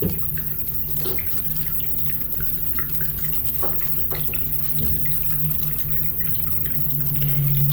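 Scattered faint clicks and small taps of a screw being turned and tightened into a dowel pin, over a steady low hum.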